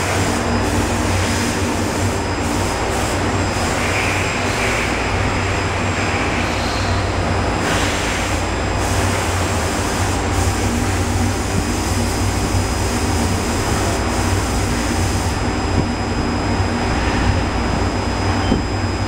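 Kia SKT-21LM CNC turning center running, its spindle and drives making a steady mechanical hum with a faint high whine.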